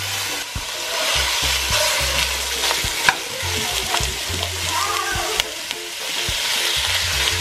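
Raw ground beef sizzling steadily in hot oil in an enameled Dutch oven as it is stirred and broken up with a wooden spoon. There is one sharp knock about three seconds in.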